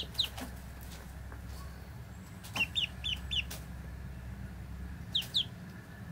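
Ducklings peeping: short, high, falling peeps, a pair right at the start, a quick run of four about two and a half seconds in, and another pair about five seconds in.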